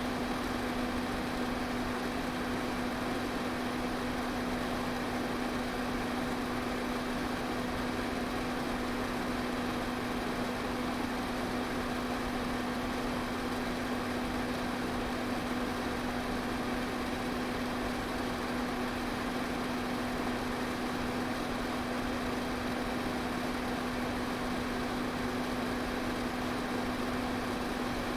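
Electric fan running steadily: an even rush of air with a constant low motor hum.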